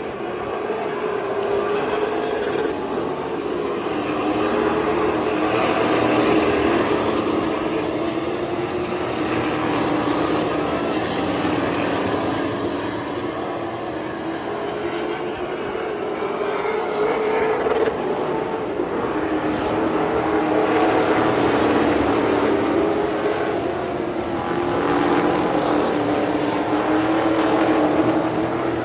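A field of Thunder Car race cars running laps on a short paved oval. Several engine notes overlap and waver up and down in pitch, swelling louder and easing off every few seconds as the pack passes.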